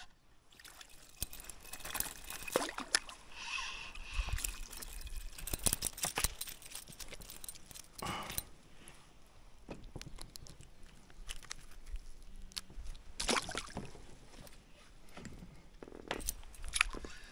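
Water sloshing and splashing against a small boat, with scattered knocks and clatters of gear.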